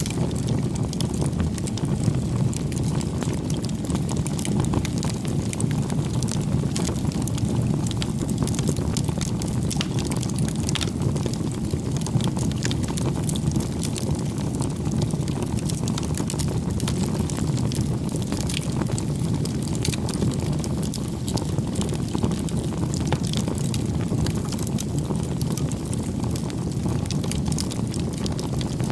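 Wood fire burning, a steady low rumble with frequent small sharp crackles and pops of burning wood.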